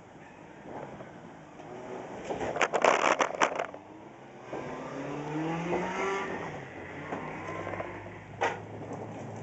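A heavy cabinet being shoved across a pickup bed over scrap wood: a loud run of scraping and knocking about two seconds in. This is followed by a vehicle engine rising in pitch, a single knock and a low steady hum near the end.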